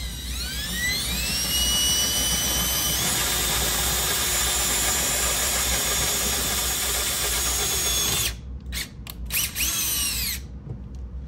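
Cordless drill running a 13/64-inch bit into sheet-metal car body, enlarging a hole ready for an M6 tap. The motor whine climbs as it speeds up, steps up again about three seconds in and runs steady, then stops about eight seconds in, followed by a few short bursts of the trigger.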